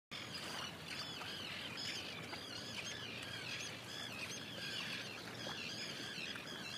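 Many birds calling and chirping at once, short overlapping calls over a steady outdoor background hiss, starting suddenly.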